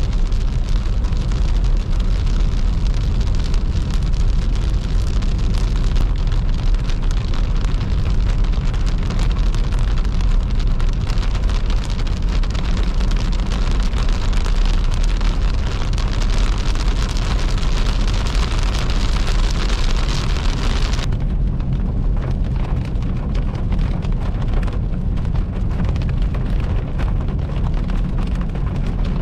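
Car driving on a wet highway in rain, heard from inside the cabin: a steady low road rumble under a hiss of rain and wet tyres, with raindrops ticking on the windscreen. The hiss drops away suddenly about two-thirds of the way through, leaving mostly the rumble.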